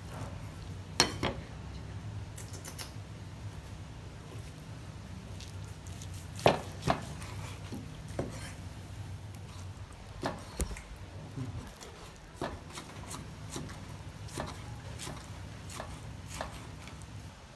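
Large kitchen knife slicing cooked meat on a thick round wooden chopping block: sharp, irregular knocks as the blade strikes the wood, roughly one every second, the loudest about a second in and about six and a half seconds in, over a faint low hum.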